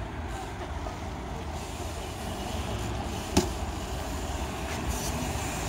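Steady low outdoor rumble, with one sharp knock about three and a half seconds in.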